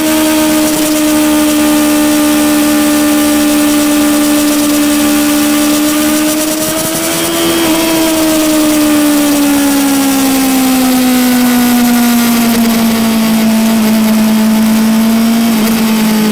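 Yamaha R6 sport bike's inline-four engine heard from on board at high revs: the engine note holds steady for about seven seconds, then falls gradually as the bike slows, with a brief break in the note about eight seconds in.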